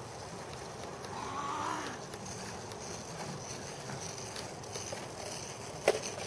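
Two-wheeled caster board rolling on asphalt: a steady rough rolling noise with scattered light clicks, and a sharp knock near the end.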